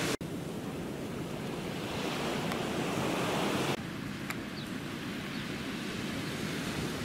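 Steady rush of sea surf washing on the beach, mixed with wind on the microphone. The sound drops out for an instant just after the start, and about four seconds in it changes abruptly to a slightly softer wash as the recording cuts.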